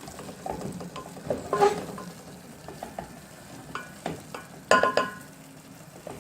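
A metal spoon scraping and knocking in a pan of dry-fried omena over a light sizzle, with a few sharp metallic clinks, the loudest two close together near the end.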